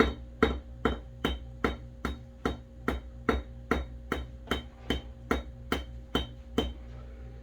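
Hammer peening a razor-scale pin on an anvil: light, evenly spaced taps about two and a half a second. The hammer is dropped under its own weight and bounces slightly off each stroke. The tapping stops shortly before the end.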